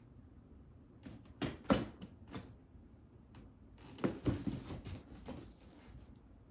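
Cats' paws treading and scrabbling on a flattened cardboard box, the cardboard crackling and rustling in two short spells.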